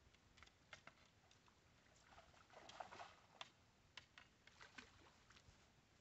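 Near silence, broken by faint, irregular clicks and a brief soft rustle about two to three seconds in.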